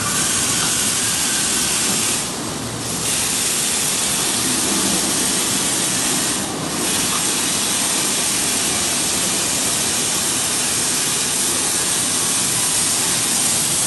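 Steady, loud rushing hiss, dipping briefly twice in the first half.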